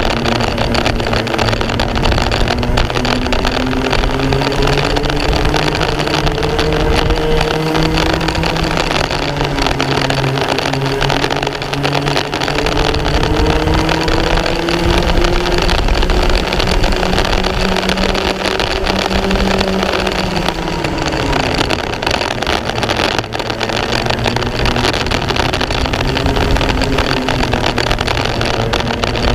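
Racing kart engine heard from on board, its pitch climbing and falling again and again as the kart is driven round the track. About two-thirds of the way through, the revs drop sharply and then build up again.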